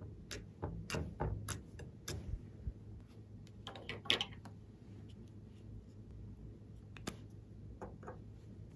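Fingertips poking into glossy slime, making sharp little popping clicks about two a second at first, then a short cluster and a few sparser clicks.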